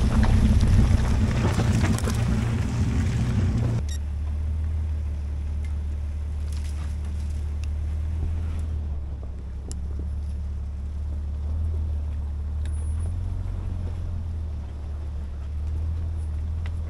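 A 4x4 truck's engine running at low speed, with loud rushing noise over it for the first four seconds. The noise cuts off abruptly, leaving a steady low engine hum with a few faint clicks.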